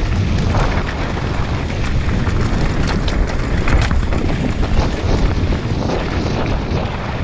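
Wind buffeting the microphone of a camera riding on a downhill mountain bike, with the tyres running over rock and gravel and the bike clattering in quick, irregular clicks and knocks.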